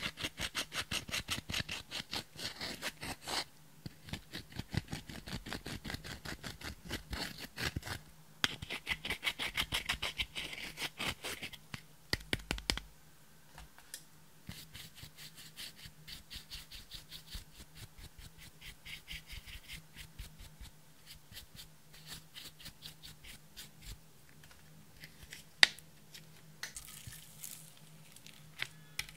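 Pointed tool scraping pressed eyeshadow out of a palette's pans, crumbling the powder in fast scratchy strokes, several a second. The strokes are louder for the first dozen seconds and softer afterwards, with one sharp click late on.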